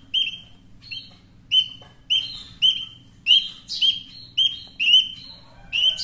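Spiderhunter (pijantung) nestling chirping: short, sharp, high chirps repeated about twice a second, the begging calls of a chick ready to be fed.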